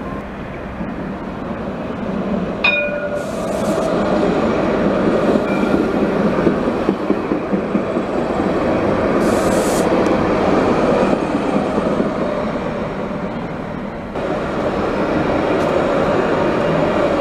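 Alstom Citadis light-rail tram passing close by on street-embedded rails: a steady rolling rumble of wheels and running gear that swells as it draws near, with one sharp clang about two and a half seconds in. About fourteen seconds in, a second tram takes over the noise as it passes on the other track.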